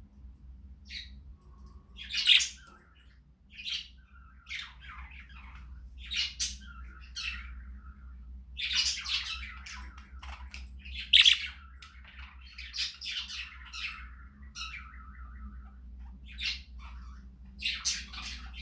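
Pet budgerigars chattering and squawking: a string of short, sharp calls and chirps, two louder squawks about two seconds in and past the middle, over a low steady hum.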